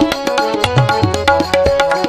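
Instrumental interlude of a Hindi devotional song: tabla playing a quick, steady rhythm, its bass drum bending in pitch, under held melody notes.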